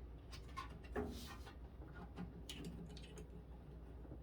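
Faint, scattered clicks and light handling noises of a screwdriver turning screws back into the microwave's metal casing.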